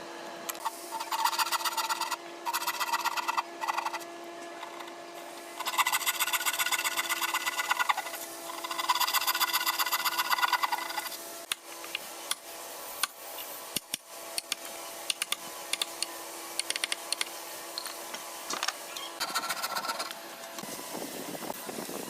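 Handheld power tool working wood in several bursts of a few seconds each, with a rapid buzzing pulse, over a steady machine hum. Scattered light knocks and clicks follow in the second half.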